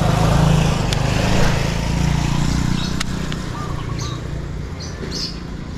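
Low engine rumble of a passing motor vehicle, loudest in the first couple of seconds and fading away, with two sharp clicks and a few short bird chirps near the end.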